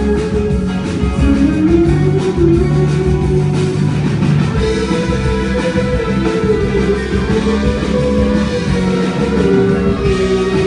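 Live band music with guitar and drum kit, a sustained melodic line gliding over the accompaniment, with no singing.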